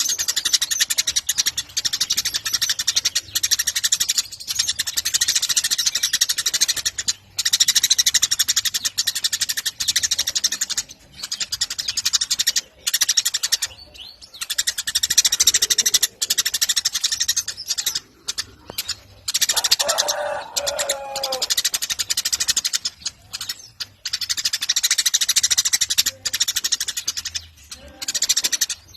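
Eurasian tree sparrows chirping in a rapid, almost unbroken chatter, with a few short pauses. About twenty seconds in, a brief lower-pitched call sounds through it.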